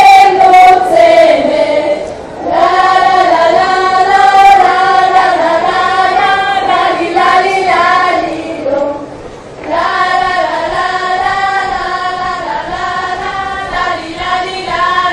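A group of women's voices singing an Orawa highland folk song together, in long phrases with short breaks about two and a half and nine seconds in.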